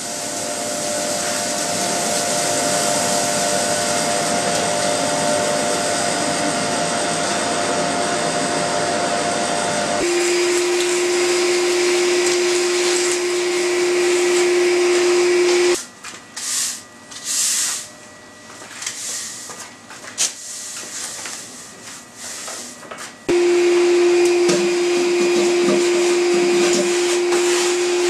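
Shop vacuum running steadily as acrylic chips are cleaned up. Its sound changes about ten seconds in to a steadier hum. It cuts out suddenly for several seconds, leaving only scattered quieter rustles and bumps, then starts again abruptly.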